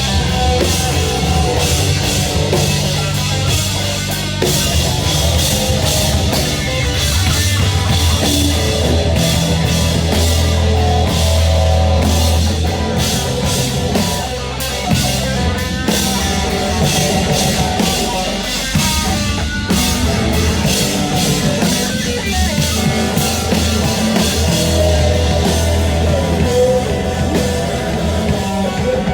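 A band playing heavy rock live, with a pounding drum kit and guitars, loud and without pause.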